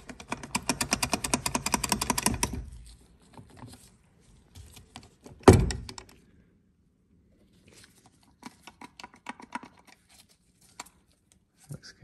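A starter motor handled and turned by hand on a workbench: a rapid run of clicks, about ten a second, for the first two and a half seconds. A single heavy thunk comes about halfway, then a few faint clicks and taps.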